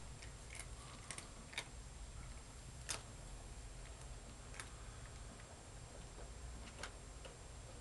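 A few faint, sharp clicks and ticks at irregular moments over a low steady hum, the loudest about three seconds in.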